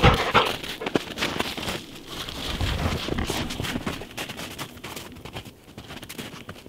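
A black Labrador retriever bounding through deep snow: irregular crunching and thudding footfalls, with a sharp thump right at the start. The footfalls thin out over the last couple of seconds.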